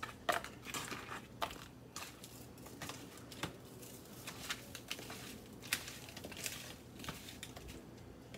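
Hands tossing egg-coated okra pieces in cornmeal breading inside a plastic colander: faint, irregular rustling and soft clicks.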